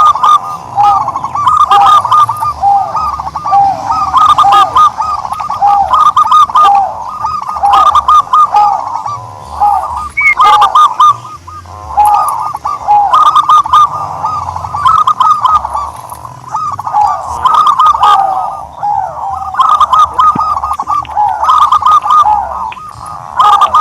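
Turtledoves cooing: runs of short, quickly repeated arching notes, phrase after phrase with brief pauses between.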